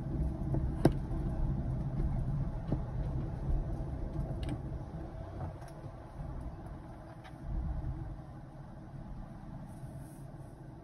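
A car's engine and road noise heard from inside the cabin while driving: a low rumble that grows quieter through the second half. There is a single sharp click about a second in.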